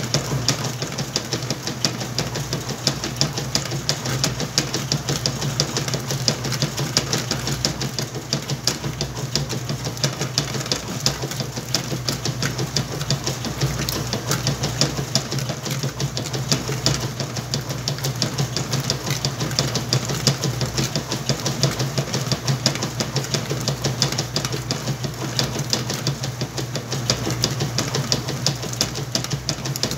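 Whirlpool washing machine running a wash on a load of towels: a steady motor hum with a fast, even ticking rattle over it.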